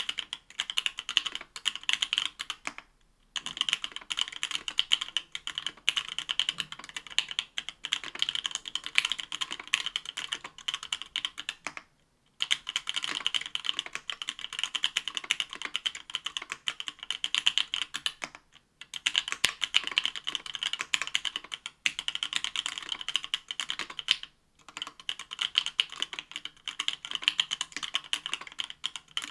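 Fast, continuous typing on a mechanical keyboard with stock 43 Studio Toy Bricks linear switches (63.5 g) in an aluminium plate, each keystroke a bright click. The typing breaks off for brief pauses about 3, 12, 18 and 24 seconds in.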